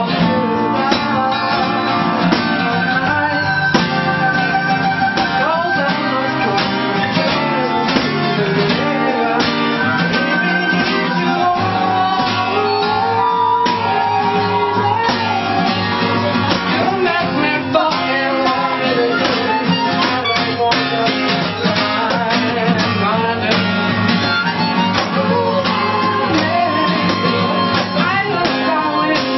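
A live acoustic band playing: acoustic guitars strum steadily, with a voice singing a melody over them.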